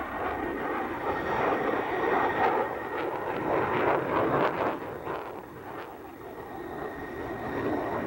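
Jet noise from a Sukhoi Su-37 fighter's twin turbofan engines as it manoeuvres overhead: a loud, even rush that swells toward the middle, with short crackles at its loudest, eases off, then rises again near the end.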